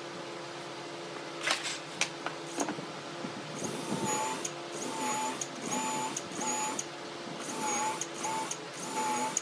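Cordless drill boring a pilot hole through a wooden crossbar into a wheel hub, its motor whining in about seven short pulses in the second half. A few sharp knocks come before the drilling.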